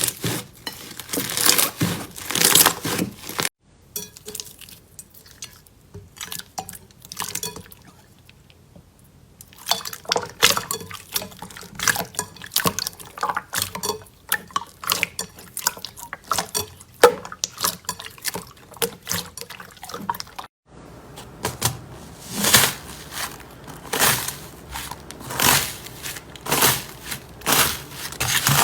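Slime being squeezed and poked by hand, making sticky, wet squelches and rapid little popping clicks. There are three separate clips, cut off abruptly about three and a half seconds in and again about twenty seconds in. The middle clip is quieter.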